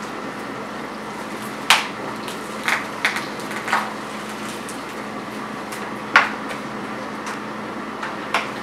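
Handling noises as a raw turkey carcass is worked by hand on a wooden cutting board: a few short, sharp clicks and knocks, the loudest about two seconds in and again about six seconds in, over a steady low room hum. The battery chainsaw is not running.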